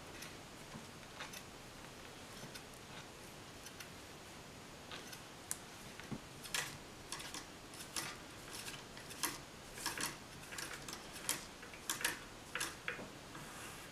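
Faint, irregular ticks and brushy clicks of a dubbing twister spinning a wire dubbing brush. They are sparse at first and come faster and louder from about six seconds in.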